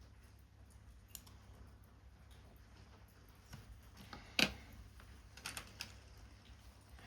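Papercraft work sounds: a few scattered small clicks and taps as paper parts and tools are handled, the loudest about four and a half seconds in, with a quick group of three about a second later.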